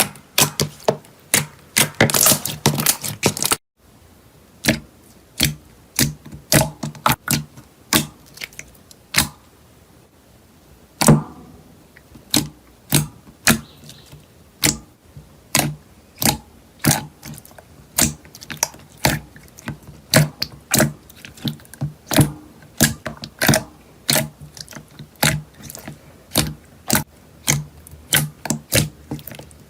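Slime being squeezed and pressed by hand, giving a steady run of sharp clicking pops, two or three a second, with a sudden cut a few seconds in.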